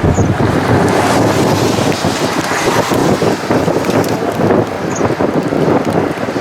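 Strong wind buffeting the microphone: a loud rushing noise that surges and dips unevenly.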